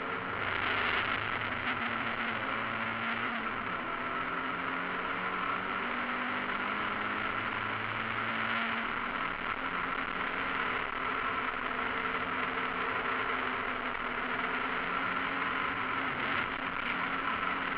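Mazda MX-5 race car's four-cylinder engine running at racing speed, heard from inside the cockpit, with steady road and wind noise and only small shifts in engine pitch.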